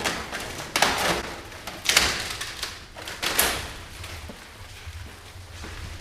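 Three sharp clunks about a second apart, like a door or panel being moved and shut, over a low steady hum.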